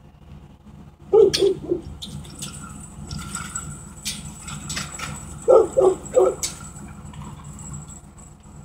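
A dog barking in two quick runs of about three barks each, one about a second in and another about five and a half seconds in, with a few faint clicks between them.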